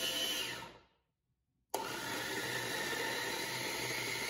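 Small electric food chopper run in two pulses while chopping vegetables in a little water. The motor winds down and stops just under a second in, then starts again abruptly about a second later and runs steadily.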